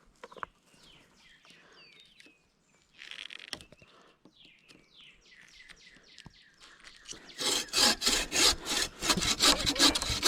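Faint bird chirps, then about seven seconds in a tool starts rasping on wood in loud, even strokes, about four a second.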